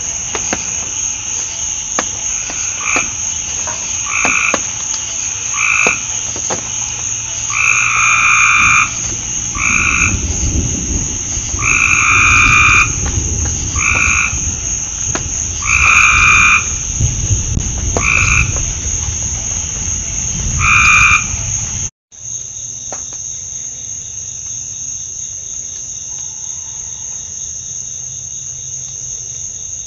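A frog croaking repeatedly in short calls, one every second or two, over a steady high insect chorus. The croaking stops after a brief dropout about two-thirds of the way in, leaving only the insects.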